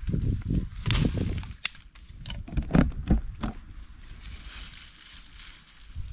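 Dry sticks knocking and clattering as they are handled and stacked into a fire lay, with a few sharp cracks about halfway through, the loudest near the three-second mark. After that comes a softer rustle of dry fibrous tinder being handled.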